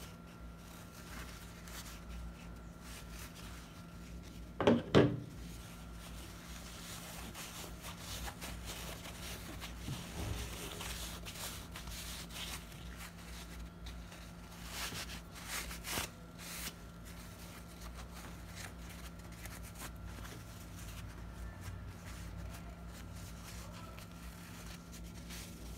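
Cotton twill fabric rubbing and rustling in the hands as a sewn strip is turned right side out. There are two sharp knocks about five seconds in, the loudest sounds here, and a few lighter ones later, over a faint steady hum.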